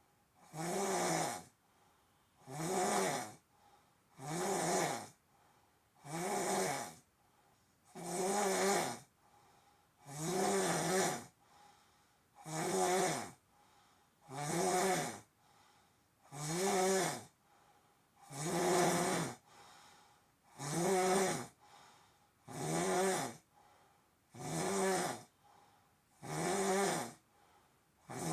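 A heavy-set man snoring in a steady rhythm, about one snore every two seconds. Each snore lasts about a second and has a clear pitch that rises and then falls.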